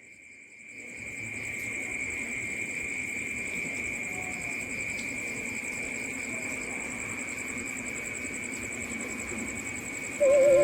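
Night ambience of crickets trilling steadily in high, even bands over a low rumbling haze, fading in over the first second. Just before the end, a wavering, theremin-like electronic music tone cuts in.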